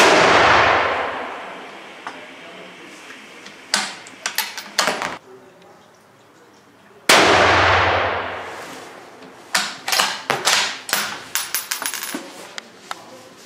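Remington 700 bolt-action rifle in .308 Winchester fired twice, about seven seconds apart, each shot ringing out and fading over about two seconds. Between and after the shots come clusters of sharp metallic clicks and clacks, the bolt being worked to eject the case and chamber the next round.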